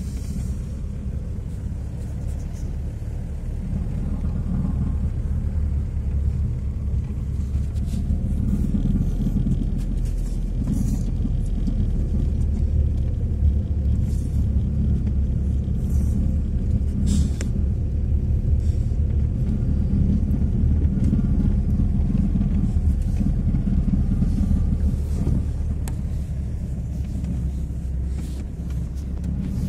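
Vehicle driving, heard from inside the cabin: a steady low engine and road rumble with a few light knocks.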